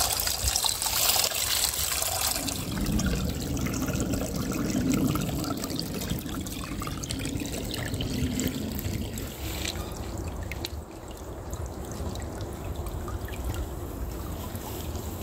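Water from a small woodland stream waterfall splashing and running over rocks. It is a steady rush that turns from a bright hiss to a lower sound a couple of seconds in, and grows quieter near the end.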